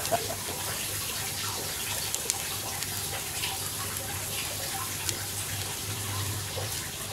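Turkey breast sizzling on a grill over glowing hardwood charcoal: a steady hiss with a few small, scattered crackles.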